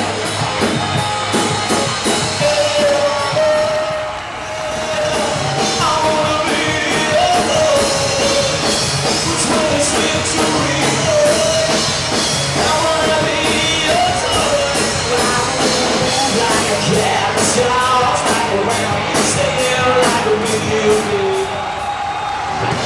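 Live rock band playing: a male singer's voice over electric guitar and a drum kit with regular cymbal hits. Near the end the vocal line slides down in pitch.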